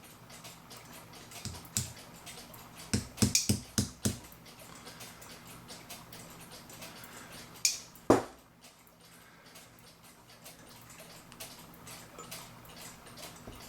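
Sharp clicks and taps of pliers on the small metal parts of a clock movement as a gear is worked along its shaft: a quick run of five or six clicks about three seconds in and a single louder click about eight seconds in.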